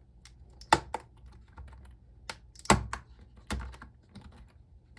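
Typing on a computer keyboard during a typing test, irregular keystrokes with three louder clacks among them. The keyboard was soaked with spilled tea and has some sticking keys.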